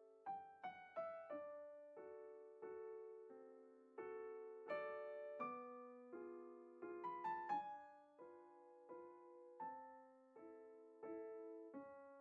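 Quiet solo piano background music: notes and chords struck one after another, each ringing and fading away.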